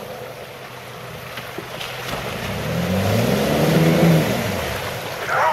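Jeep Liberty Renegade's engine revving up as the 4x4 drives into a deep muddy water hole, with water sloshing against the front. The revs drop off again after the loudest point, about four seconds in.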